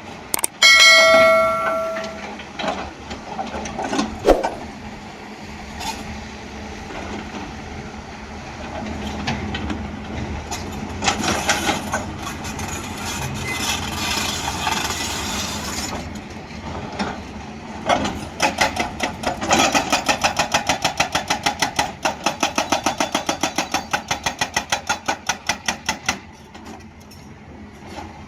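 Hyundai excavator's diesel engine running, with a hydraulic rock-breaker hammer at work. About a second in there is a sharp ringing metal clang. Near the end comes a fast run of hammer blows, about five a second, that lasts several seconds and then stops.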